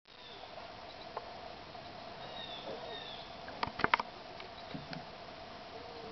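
Swamp outdoor ambience: a steady insect drone with short, high, descending bird chirps over it. A quick cluster of sharp knocks comes a little past the middle.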